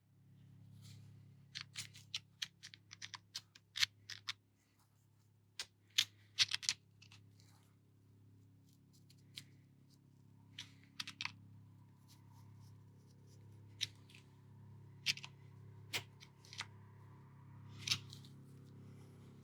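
Light clicks and taps from a flathead screwdriver tapping a small nut down onto the threads of a Saginaw power steering gear. A quick flurry comes in the first several seconds, then scattered single taps, over a steady low hum.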